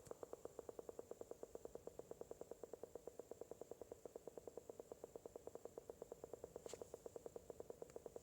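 Faulty alarm unit making a rapid, steady knocking, about eight knocks a second, which keeps going after the doorbell has been answered. A faint high whine runs underneath.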